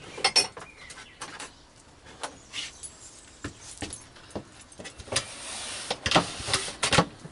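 Handling noises: a scatter of small clicks and knocks, with a paper rustle lasting about a second some five seconds in.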